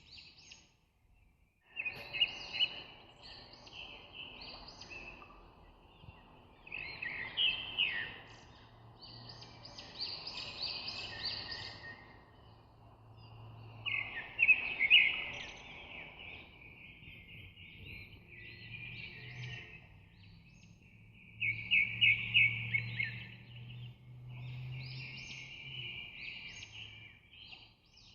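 Birds chirping and singing in repeated bursts of quick high notes, over a faint low hum.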